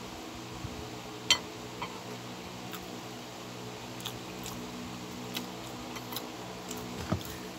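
Metal spoon and fork clinking and scraping in a bowl while eating: scattered sharp clicks, the loudest about a second in and another near the end. A steady low hum runs underneath.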